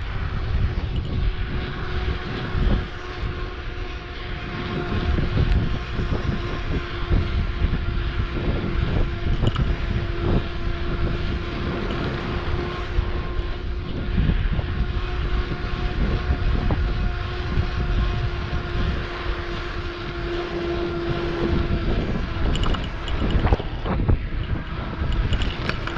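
Electric mountain bike's motor whining at a steady pitch while riding, over heavy wind buffeting on the microphone and low road rumble. The whine grows a little stronger about twenty seconds in.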